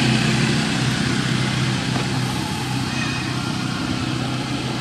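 An engine running steadily, a low even hum that does not change in pitch.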